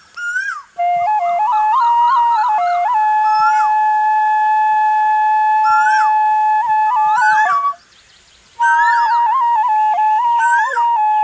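Bansuri (Indian bamboo flute) playing a ringtone melody with quick slides and grace notes, holding one long note for several seconds in the middle. It breaks off briefly about three quarters of the way through, then the melody resumes.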